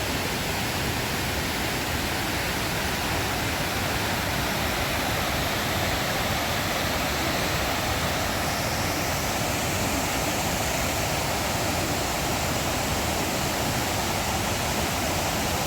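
Steady rush of the Putna waterfall: fast river water pouring over rocks, an even roar with no breaks.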